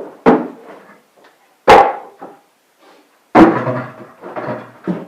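Wooden saddle rack being banged and shaken to test its strength: three loud knocks about a second and a half apart, with smaller knocks and rattling between and after.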